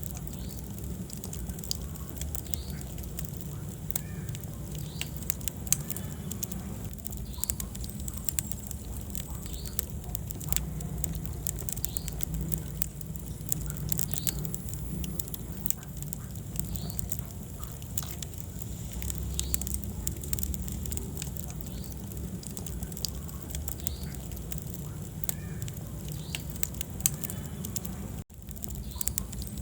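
Wood fire crackling in a fireplace, with frequent sharp pops and snaps over a steady low rumble of burning. The sound cuts out for an instant near the end.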